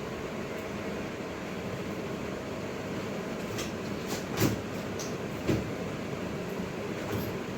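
Steady mechanical room hum, with a few light clicks and two louder knocks about four and a half and five and a half seconds in.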